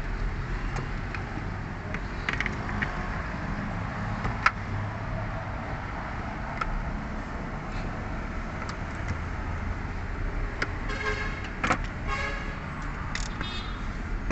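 Clicks and short rattles of small fuel pump assembly parts being handled and fitted, with one sharp click about four and a half seconds in and a quick run of rattling clicks near the end, over a steady low rumble.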